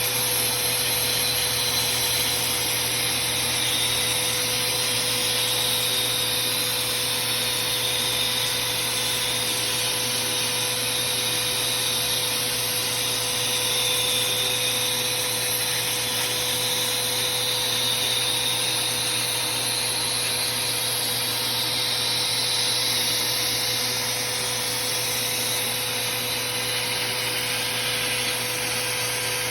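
Vacuum cleaner running steadily, a continuous motor whine and rush of air, sucking up sawdust.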